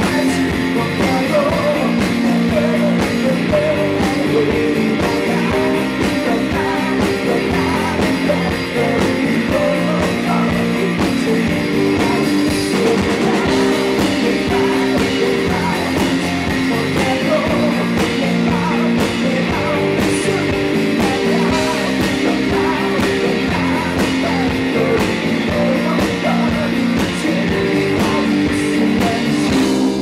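Live rock band playing: strummed acoustic guitar, electric guitar and drum kit, with a male lead voice singing over them.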